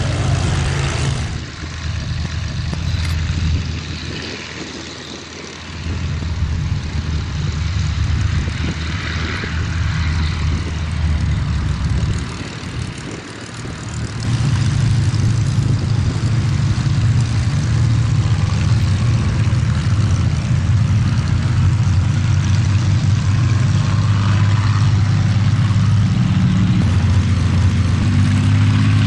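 Boeing B-17 Flying Fortress's four Wright Cyclone radial engines running with a steady low, multi-toned drone. It dips twice in the first half, then holds steady and louder over the second half.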